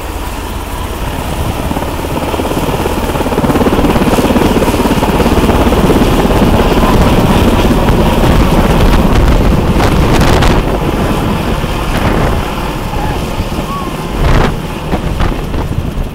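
U.S. Coast Guard Sikorsky H-60 Jayhawk helicopter taking off and climbing overhead: rotor and twin-turbine noise with its rotor wash buffeting the microphone. Loudest in the middle as it passes overhead, easing off as it climbs away, with a sharp gust hitting the microphone near the end.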